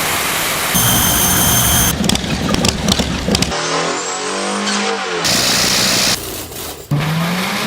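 A rapid string of different engines, each heard for only a second or so before an abrupt cut to the next, including a steady pitched engine note and, near the end, an engine revving up.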